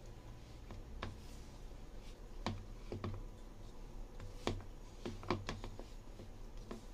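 Irregular sharp clicks and light knocks, about seven, as hands knead sticky pumpkin and glutinous rice flour dough in a ceramic bowl, with hand and bowl tapping against the bowl rim and the counter, over a faint low hum.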